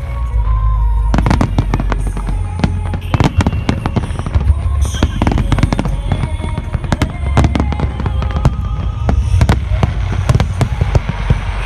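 Aerial firework shells bursting in rapid, overlapping succession, with deep booms under a constant crackle. Music plays along underneath.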